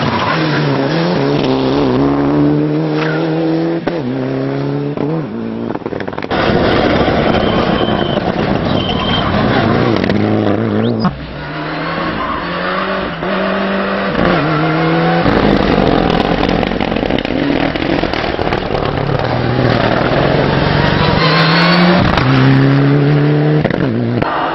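Mitsubishi Lancer Evolution IX rally car's turbocharged 2.0-litre four-cylinder engine revving hard under acceleration, its pitch climbing and then dropping sharply with each gear change, over several spliced passes.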